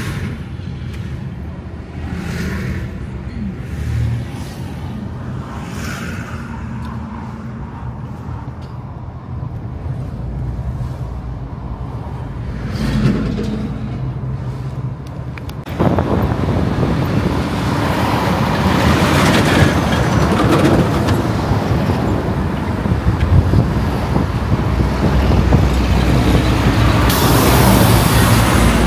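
Diesel semi-trucks on a highway, engine and tyre noise swelling and fading as trucks pass a few times. About halfway through it changes abruptly to louder, steady road and wind noise from a moving vehicle driving alongside a container-carrying semi-trailer.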